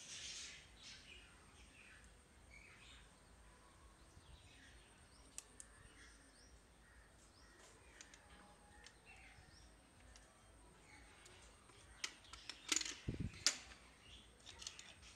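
Faint clicking and rubbing of small plastic pan-tilt bracket parts and a servo horn being handled and fitted together, with a few sharper clicks near the end as parts are set down on the table.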